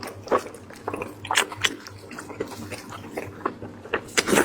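Close-miked eating sounds: wet chewing and lip smacks on braised lamb-head meat, a series of short, irregular smacks with the loudest cluster near the end.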